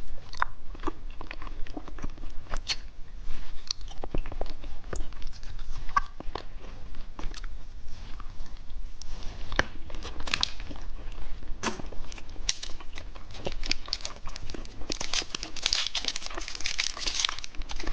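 Plastic candy wrapper crinkling and tearing as a packet of eyeball candy is opened, with scattered sharp crackles throughout. The crinkling grows dense near the end.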